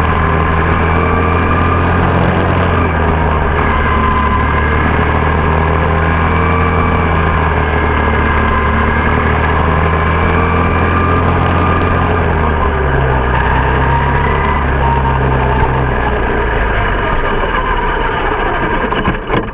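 Single-cylinder engine of a quarter midget race car running steadily under way, then dropping to lower revs as the car slows, and stopping shortly before the end.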